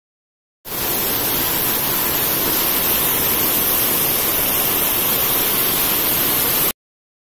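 Steady rush of the swollen Algar river pouring over rocks and small falls, loud and even throughout. It starts abruptly just under a second in and cuts off suddenly near the end.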